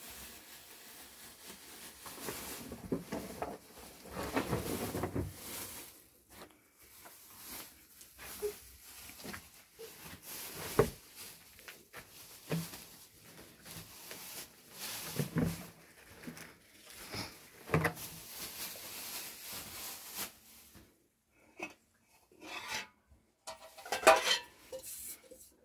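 Metal dishes and pots being handled: rustling and scattered knocks, then sharp clinks of metal trays and a pot near the end, the loudest about a second before the end.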